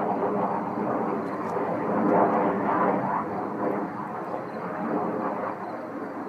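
A jet-like roar in the sky, like the atmosphere being ripped apart by a jet. It swells about two seconds in and eases off somewhat later. Its source is unidentified: no aircraft can be seen.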